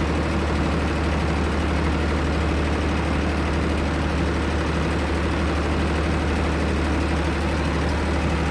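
Heavy excavator's diesel engine running at a steady pitch and level.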